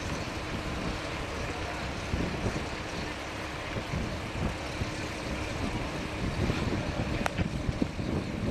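Wind buffeting the microphone in uneven gusts over a steady rushing noise, with a single sharp click near the end.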